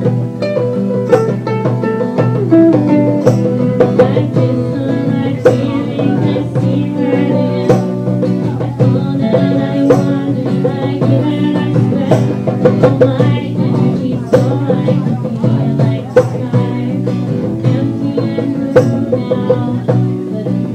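Acoustic guitar played live, with a sharp strummed accent about once a second over a steady run of notes.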